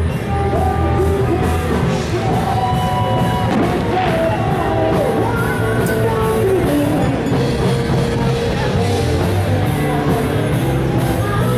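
Live rock band playing, with a singer over a steady bass line.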